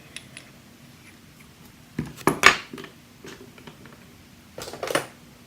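Light metallic clicks and clinks of small lock pins and parts being handled, in a group about two seconds in and another near the end.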